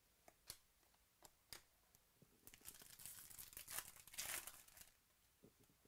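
Plastic foil wrapper of a 2018 Bowman Chrome baseball card pack being torn open and crinkled, loudest around four seconds in. Before it, a few light clicks of cards being handled.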